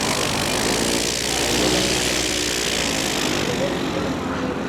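Piper PA-28-140 Cherokee's four-cylinder Lycoming piston engine and propeller running steadily at power; the upper hiss falls away near the end.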